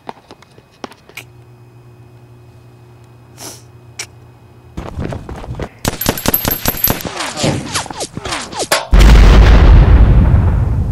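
Rapid gunfire, a dense string of shots starting about five seconds in and lasting about four seconds. It is cut off by a sudden loud explosion that dies away over a couple of seconds.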